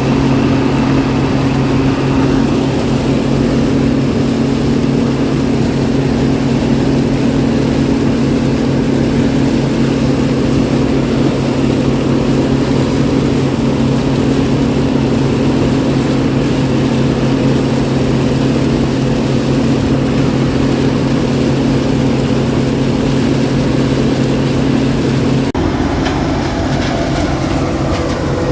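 Combine running steadily with a constant low engine hum, its sound changing abruptly about 25 seconds in.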